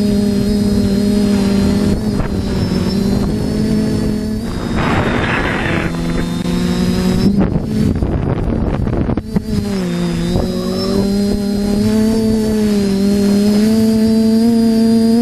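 Quadcopter electric motors and propellers running with a steady multi-tone whine that dips in pitch about ten seconds in and then climbs again as the throttle changes. Rushes of wind noise come in the middle.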